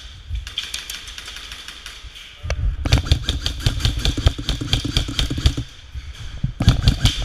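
Airsoft gun firing rapid full-auto bursts, a fast rattle of clicks: a long burst starting about two and a half seconds in, and a short one near the end.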